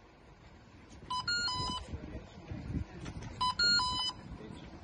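Electronic beeping jingle of a few quick steady tones from a battery-powered toy gun, sounding twice about two seconds apart, each lasting a little over half a second.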